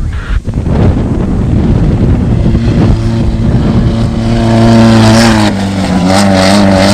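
Off-road desert race vehicle's engine running loud at high revs. A rushing noise for the first few seconds gives way to a steady engine note, which drops a little in pitch past halfway.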